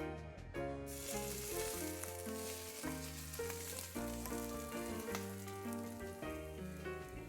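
Food frying in a hot pan, a steady sizzle that starts about a second in, with background music playing throughout.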